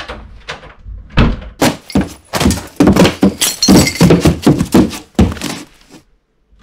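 A closet door shuts with a thud about a second in. A fast run of loud bangs and clattering follows from behind it, things being knocked about while someone rummages inside, and it stops abruptly near the end.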